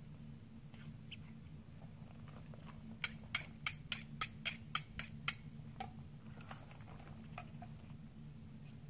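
A butcher's knife honed on a sharpening steel: about nine quick metal strokes, roughly four a second, starting about three seconds in, over a steady low hum.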